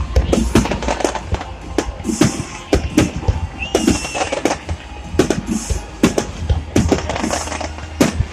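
Fireworks display: a rapid string of bangs from shells bursting, with bursts of crackling about every two seconds and a short whistle about four seconds in.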